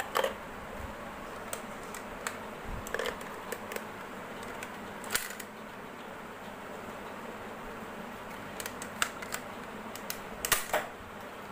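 Plastic clicks and knocks from a toy spring-powered pistol being handled and worked, irregular and scattered, with the loudest about five seconds in and a quick cluster near the end, over a steady hiss.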